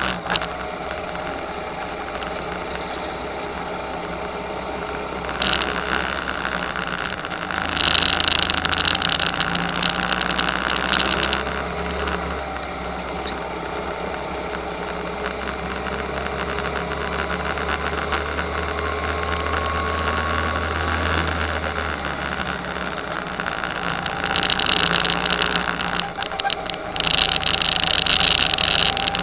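Go-kart engine running under load on track, its pitch drifting up and down through the laps. Loud bursts of rushing noise cover it twice, about a third of the way in and again near the end.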